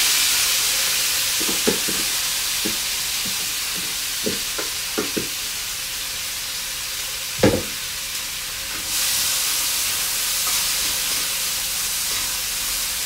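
Onions, scallion and pepper sizzling loudly in a little hot oil in a pot, just put in to fry, with a few knocks of a utensil against the pot, the loudest a little past halfway. The sizzle eases slightly, then grows louder again about two-thirds of the way through.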